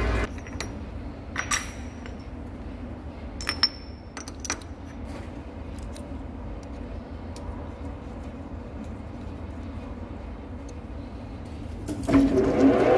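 A metal centre lathe's cutting noise stops right at the start, leaving a low steady hum; over the next few seconds come several light metallic clinks from the steel cutting tool and tool post being handled. Near the end the lathe starts up again.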